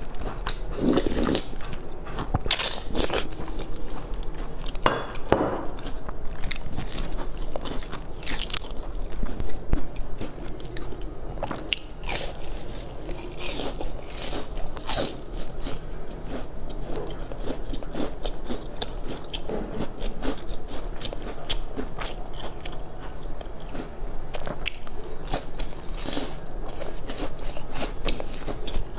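Close-up eating sounds: bites into glazed, sesame-edged round pastries, then crunching and chewing, with many short crackles and mouth noises throughout.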